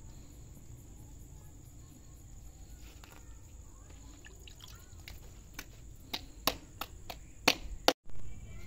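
Hands slapping a ball of roti dough flat between the palms: a run of sharp pats that come faster and louder over the second half, after a few seconds of faint background.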